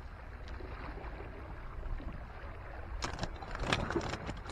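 Scraping and knocking of a gloved hand moving stones among breakwater rocks in a short cluster about three seconds in. Underneath runs a steady low wash of sea water and wind.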